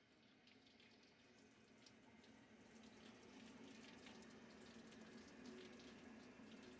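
Faint water running from a tap into a steel sink, with small irregular splashes, fading in from near silence and growing steadily louder.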